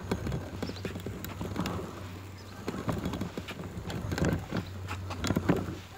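A walking frame knocking and rattling as a man walks with it, with a heavier knock and shuffle about every second and a quarter as each step is taken.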